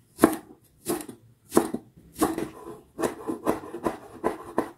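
Kitchen knife slicing a leek on a wooden cutting board: about nine cuts, slow at first and then quicker, each a sharp stroke of the blade through the leek onto the wood.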